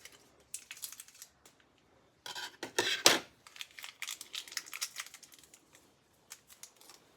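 Hands handling small parts and packaging: a string of sharp clicks and crinkling rustles, with the loudest crackling burst around two to three seconds in.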